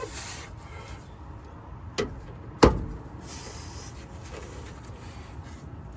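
Two sharp knocks about two-thirds of a second apart, the second one louder, against a low background hum.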